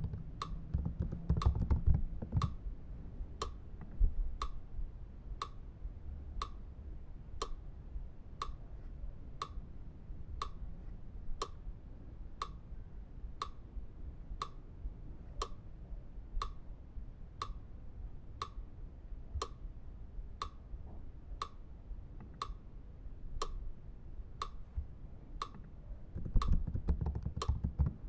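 Steady, even ticking about once a second, like a clock, each tick crisp with a slight ring. Low rumbling noise sits under it for the first couple of seconds and again near the end.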